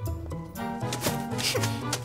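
Background music with a bass line and light pitched notes. Around the middle, a brief rustling swish as a bouquet of flowers is swept off a table.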